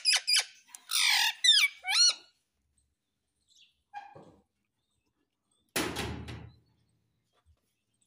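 Rose-ringed parakeet chattering in a quick string of high squawks that glide up and down for about two seconds. Then a single short rustling thump comes about three-quarters of the way in.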